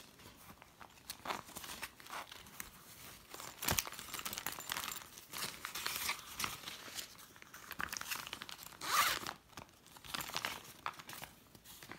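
Paper peso banknotes being handled and slipped into a clear plastic zip pouch of a cash binder: paper and plastic crinkling and rustling in short bursts, with a sharp tap about four seconds in and the loudest crinkling about nine seconds in.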